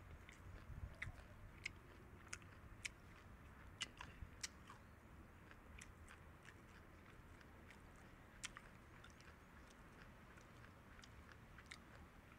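Rabbits and guinea pigs chewing lettuce leaves: faint, irregular crisp clicks of nibbling, thinning out after the first few seconds.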